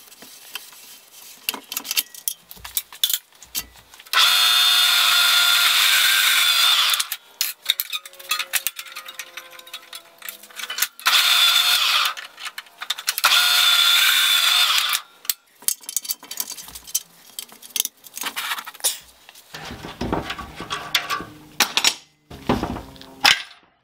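A handheld power tool in a metal workshop runs in three short bursts: about three seconds, then about one, then just under two. Between the bursts and near the end there are clinks and knocks of metal parts being handled.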